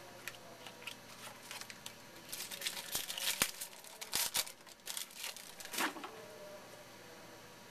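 Trading cards and their packaging being handled: a flurry of rustling and crinkling that grows busiest in the middle and ends about six seconds in.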